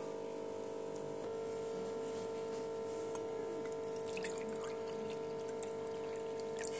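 Water poured from a steel cup into a stainless steel bowl, splashing, with a cluster of sharper splashes about three to four seconds in. Background music holds a steady tone throughout.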